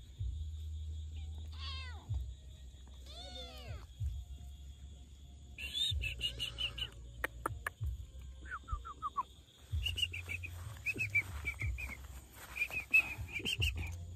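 Kittens meowing, two arching calls a couple of seconds in, then runs of short, high, repeated chirping notes later on, over a low rumble.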